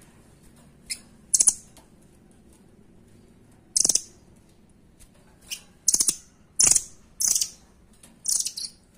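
Blue nuthatch (rambatan doraemon) giving its rapid-fire call: about seven short, very high, fast-pulsed trilled bursts, the loudest in the second half.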